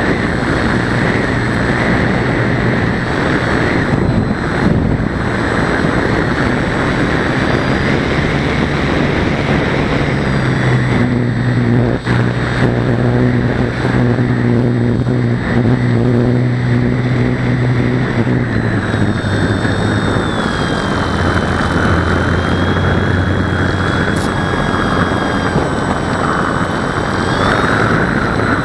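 Motor and propeller of a small RC model aircraft running in flight, a steady buzz with wind noise over the onboard camera. The pitch shifts a few times as the throttle changes, settling lower in the last third.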